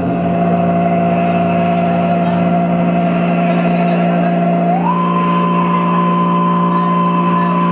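Electronic noise music: a steady low drone under a dense buzzing layer of held tones, with a single higher tone that jumps up in pitch about five seconds in and holds.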